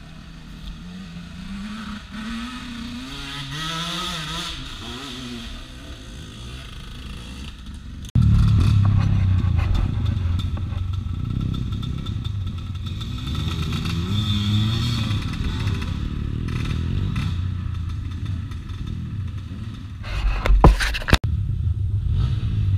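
Dirt bike engines revving up and down, quieter at first. About eight seconds in, a loud close engine takes over and keeps running and revving. Near the end comes a short burst of clattering knocks.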